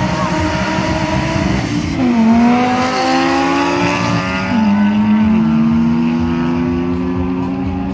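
Two race cars accelerating hard from a standing start down a drag strip. Their engines climb in pitch and drop sharply at each upshift, several gear changes in a row.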